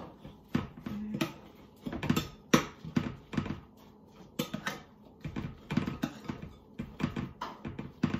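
Metal spoon stirring wet stuffing mix in a glass bowl, clinking and scraping against the glass in irregular taps, a few each second.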